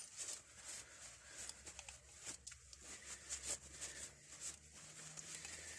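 Faint scattered clicks and light scrapes of a key being worked in a rusted, seized padlock that will not turn.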